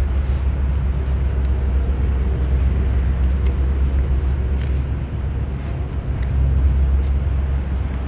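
Steady low rumble of outdoor ambience with road traffic, swelling a little near the end.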